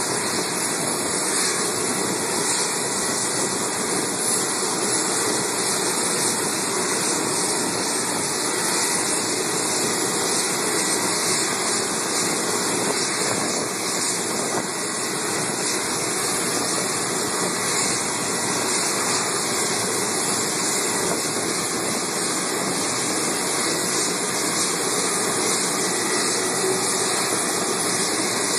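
Steady hiss and rumble of jet engines as a business jet taxis across an airport apron at low power, with a thin, steady high whine over it.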